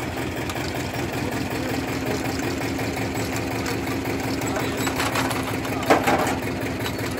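Potato-harvesting machinery running steadily: an engine's even hum with a steady drone, and a single sharp clank about six seconds in.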